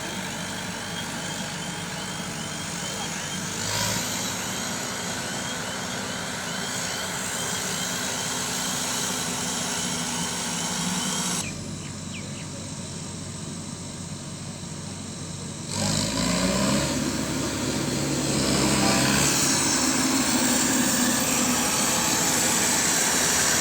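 John Deere W70 combine harvester running steadily, its engine level shifting abruptly a few times. A repeating high chirp sounds about twice a second through the first half.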